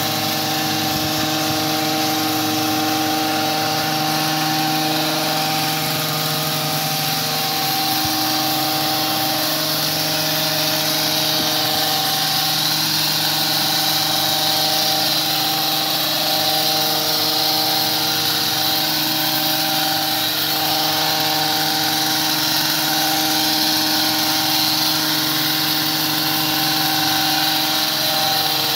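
Gas-powered hedge trimmer's small engine running steadily at high revs as its blades shear through a shrub.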